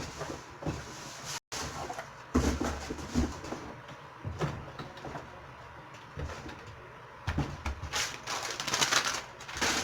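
Handling noises: scattered knocks and rustling as objects are moved and put away, with a denser run of rustling near the end.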